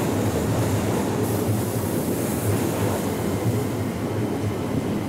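Keikyu commuter train running across a steel truss railway bridge, a steady rumble of wheels and running gear.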